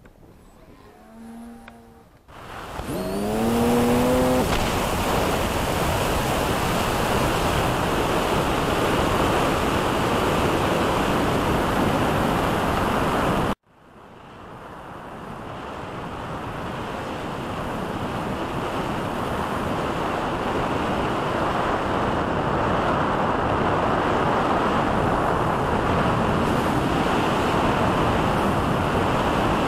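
Steady rush of air over the onboard camera of an RC model glider in flight. It cuts out suddenly about halfway and builds back up over several seconds; a few short rising tones come just before the rush starts.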